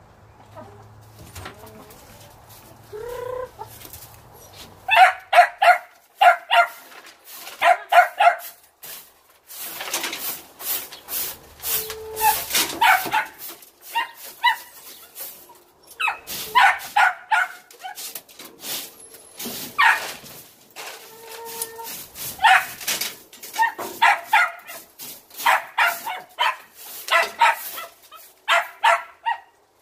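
A stiff broom sweeping straw litter across a coop floor and into a plastic dustpan, in scratchy strokes. Loud clusters of short, rapid animal calls, three to six in quick succession, break in again and again.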